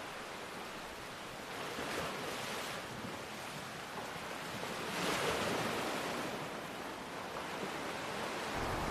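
Ocean waves washing on a shore, a steady surf hiss with two swells as waves break, about two seconds in and again about five seconds in.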